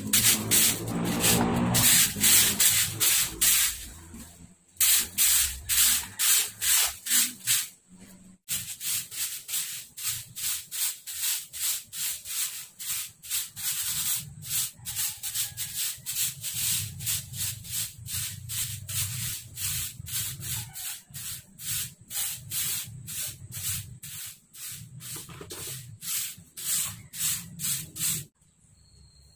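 Bristles scrubbing a rough concrete surface in brisk back-and-forth strokes, about two or three a second, with short breaks near four and eight seconds in. The scrubbing stops suddenly just before the end.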